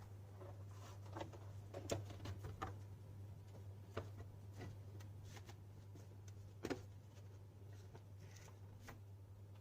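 Sparse light clicks and taps of small hard plastic parts being handled, a few a second at most with the sharpest about two, four and nearly seven seconds in, over a steady low hum.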